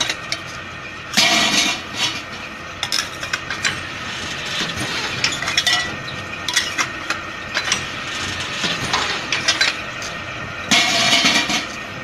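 Metal clinking and scraping from a hand-operated steel bending machine being worked. Many sharp clanks throughout, with louder stretches about a second in and near the end.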